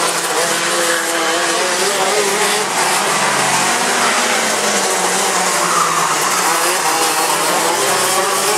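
Several KZ125 shifter karts' 125 cc two-stroke engines running on track, their overlapping high engine notes rising and falling as the karts accelerate and slow through the corners.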